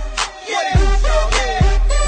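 Hip-hop music with vocals over a deep bass beat, a heavy bass hit about every second and a sharp drum hit between them.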